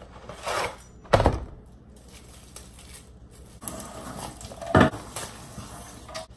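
Kitchen handling noise as a frozen pizza is unpacked: two sharp thumps on the counter, the louder one about a second in and another just before five seconds, with rustling of the cardboard box and plastic wrapping in between.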